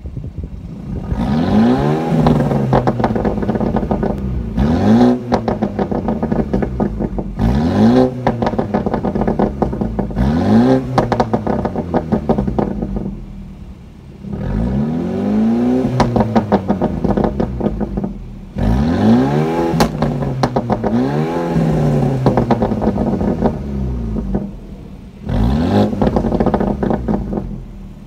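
BMW F36's turbocharged N26 four-cylinder, through a non-resonated AWE Tuning touring cat-back exhaust, revved about eight times while parked. Each rev rises and falls, with crackling burble pops on the way down from the Stage 1 tune's custom burble setting.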